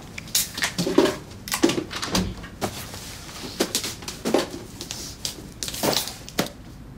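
Handling noises: a run of irregular knocks, scrapes and rustles as a cardboard box is fetched from the back shelves and set down in front of the others.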